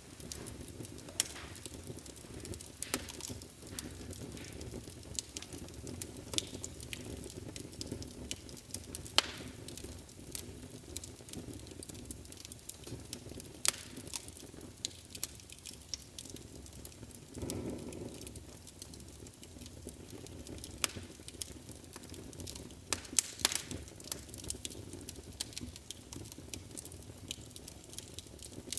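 Wood fire burning in a fireplace: a steady low rumble of flames with scattered sharp crackles and pops, and a brief louder surge of flame noise a little past halfway.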